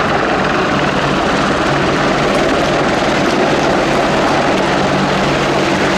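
AgustaWestland Apache AH1 attack helicopter hovering low and close, its twin Rolls-Royce Turbomeca RTM322 turboshafts and four-blade rotor making a loud, steady drone with a low hum.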